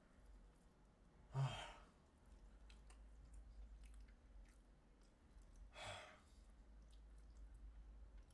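A man sighing out hard through pursed lips twice, about a second and a half in and again near six seconds, his mouth burning from very hot chili wings; otherwise near silence with a faint low room hum.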